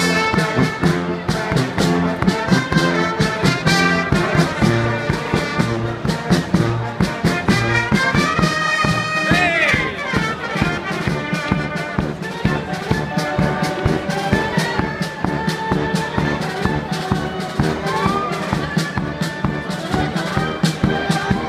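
A banda, a festive street brass band, playing live: trumpets and trombones with a sousaphone over a steady bass-drum beat, and a sliding horn note about halfway through.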